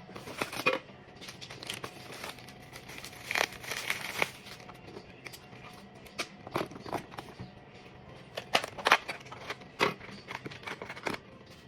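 Irregular crinkling and rustling with scattered sharp clicks, as of something being handled.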